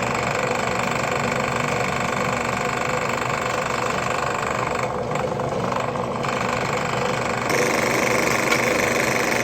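Benchtop drill press motor running steadily while drilling a small pin hole in an oak knife-handle blank, with a slight change in tone about seven and a half seconds in.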